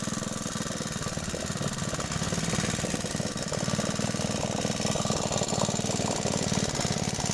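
Small air-cooled single-cylinder engine, a scrap engine running again after sitting for about a decade, running steadily with a rapid, even putter.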